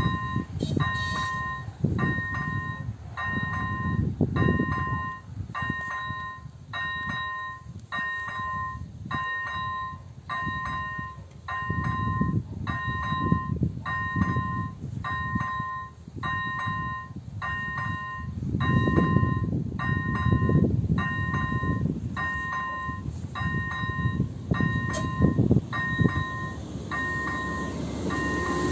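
Electronic level-crossing bell (AŽD electronic bell type 01) ringing a steady two-tone ding about once a second while the crossing's warning is active. A low rumble comes and goes underneath, and in the last moment the noise of the arriving diesel railcar swells up.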